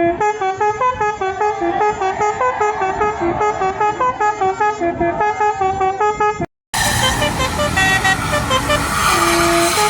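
Tour bus 'basuri' telolet horn playing a fast melody of short notes stepping up and down in pitch. About two-thirds through, the sound drops out briefly and another horn melody takes over, ending with a longer held note.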